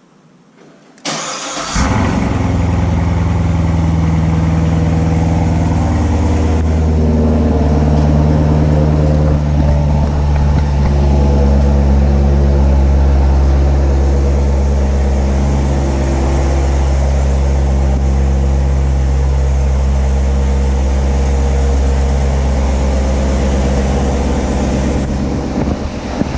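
Chevrolet Corvette C7 Grand Sport's 6.2-litre LT1 V8 cranking briefly and catching about a second in, then running at a steady idle.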